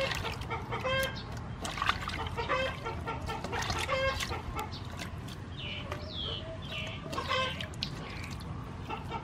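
Water sloshing and splashing as hands rub broccoli pieces in a metal basin of water, with a bird's short calls repeating about once a second.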